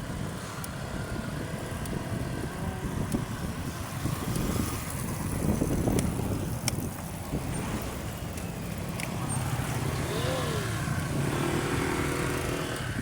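Road traffic: motor vehicles running past with a steady low rumble.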